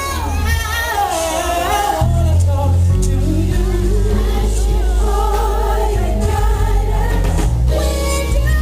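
Live gospel music: a woman singing with band accompaniment and a strong bass line.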